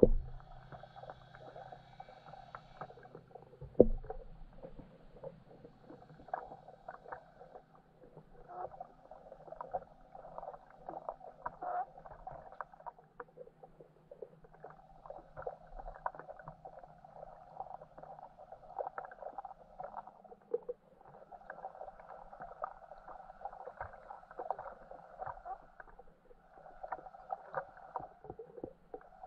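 Underwater sound from a lake bed, heard through a camera's waterproof housing: irregular muffled crackling and clicking, with a sharp knock at the very start and another about four seconds in.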